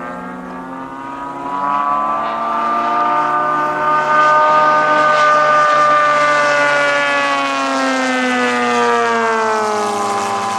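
Engine and propeller of a radio-controlled aerobatic model airplane making a low, fast pass. The buzz grows louder over the first few seconds, then its pitch drops steadily through the second half as the plane goes by.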